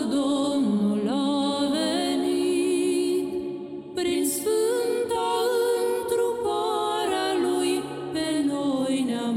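A Christmas carol sung, with voices holding long, wavering notes over the music. The singing breaks off briefly a little before halfway, then a new phrase begins.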